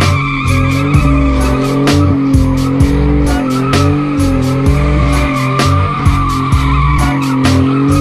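Music with a deep bass line that moves in steps and sharp drum hits at an even beat, with wavering high tones held over it.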